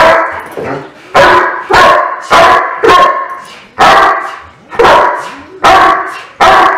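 Doberman barking in sharp, loud single barks, about nine in a row, at roughly one bark every half second to a second. They are demand barks for a tug toy held behind the handler's back: the basic bark drill of IPO protection training.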